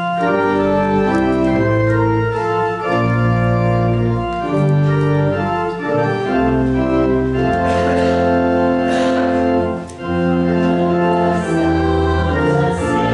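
Church organ playing held chords over a moving bass line, starting suddenly, with a short break about ten seconds in.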